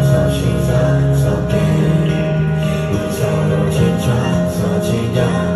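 Live music: an acoustic guitar playing chords under a singer's held notes.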